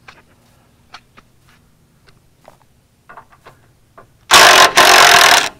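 Ryobi 1/2-inch cordless impact wrench hammering in two loud bursts, the first short and the second about a second long, loosening a front bumper bolt. Light clicks and taps come before it.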